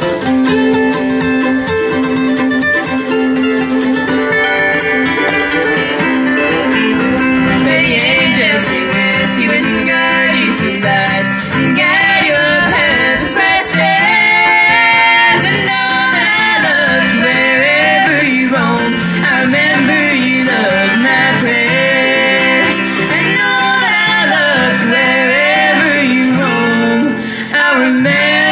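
Live acoustic bluegrass band playing an instrumental passage through a PA, with strummed acoustic guitar underneath the string lead.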